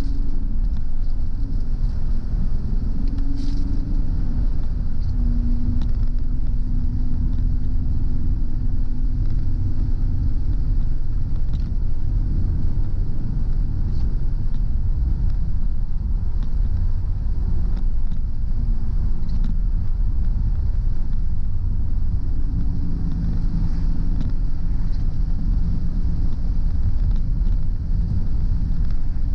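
Car driving along a road: a steady low rumble of engine and road noise, with an engine hum that shifts in pitch now and then.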